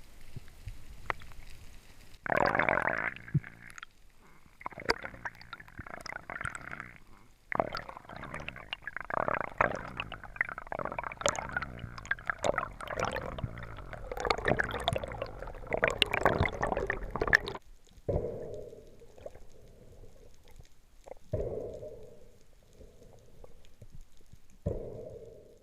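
Underwater water noise picked up by a diving camera: bubbling and gurgling with many small clicks, breaking off about two-thirds of the way in, followed by three short separate gurgles.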